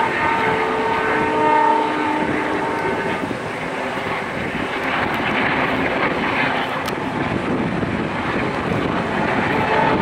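Twin ALCo WDG-3A diesel locomotives hauling a train, heard from far off as a steady drone, with a faint whining tone in the first two or three seconds.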